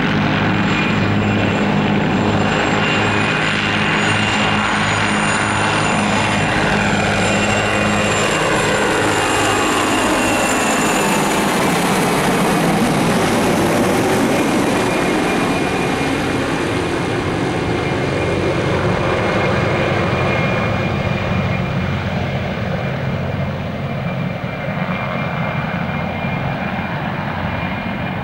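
A formation of four MD 500 and Mil Mi-2 helicopters flying low overhead: steady rotor chop with turbine whine. The pitch drops as they pass over about ten to twelve seconds in, then the sound fades as they fly away.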